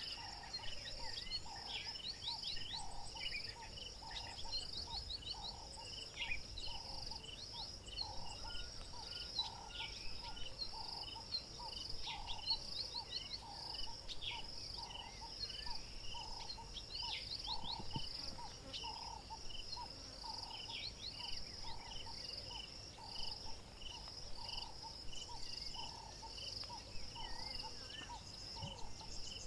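Bush ambience of insects chirping in steady, fast-pulsing trills, with a lower note repeating a little more than once a second and scattered short whistled bird calls.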